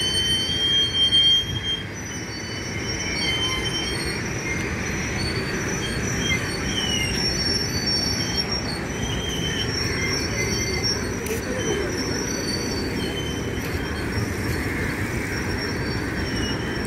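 Passenger train pulling out of a station and moving away, a steady rumble from the train with its wheels squealing in short, high, thin tones that come and go.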